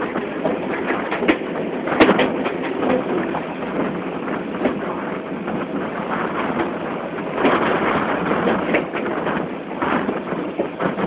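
An old DC-powered suburban electric local train braking hard into a station, heard from inside the coach: a running rumble with frequent rattling clicks and knocks from the wheels and car body.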